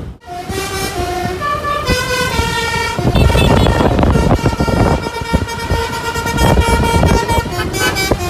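Basuri "pianika" telolet multi-tone bus horn playing a tune. It opens with a quick run of changing notes, holds a long chord through the middle and ends with a few quick notes, over the bus's engine and road rumble.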